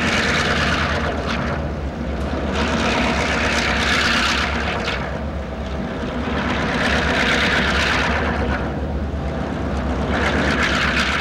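Several diesel freight locomotives working upgrade pass close by one after another: a steady deep engine drone with a hissing rush that swells and fades about every three seconds as each unit goes by.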